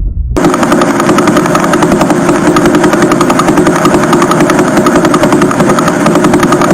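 Radio pulsar signal converted to audio: a rapid, even pulsing that chops like a helicopter rotor. It starts abruptly about a third of a second in.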